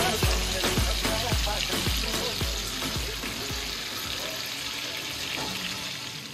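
Kebabs frying in shallow oil in a frying pan, a steady sizzle. Over it is background music with a deep bass beat about twice a second, which stops about three seconds in.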